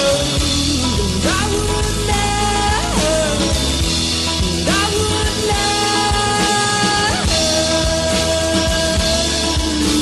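Folk-country band music in an instrumental passage: a lead instrument holds long notes that slide up into each new pitch, over a steady full backing.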